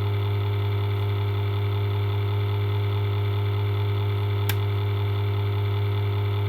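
Steady electrical mains hum, a low buzz with many overtones, unchanging throughout. One short click about four and a half seconds in.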